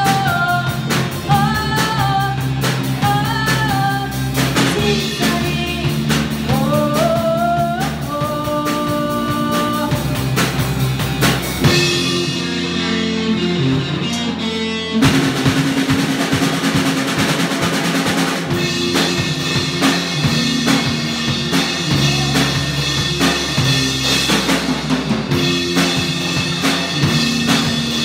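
A band song with drum kit and bass playing steadily and a melody line over them. About twelve seconds in, the music thins with the top end cut away, and the full band comes back in sharply about three seconds later.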